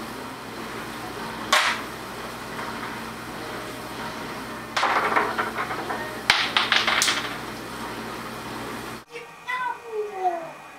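African grey parrot calling, with a few short calls falling in pitch near the end that sound like a cat's meow. Earlier there are sharp clicks and a brief rustling burst.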